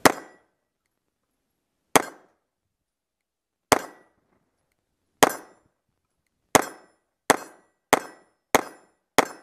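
CZ Shadow 2 9mm pistol fired single action, nine shots. The first few come about two seconds apart, then they quicken to roughly one every two-thirds of a second.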